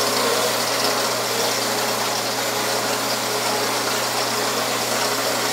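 Dayton horizontal metal-cutting bandsaw running steadily as its blade feeds slowly through a 4-inch round bar under hydraulic feed, a steady motor hum with an even hiss from the cut. The operator takes the bar for cast iron because it cuts relatively quickly.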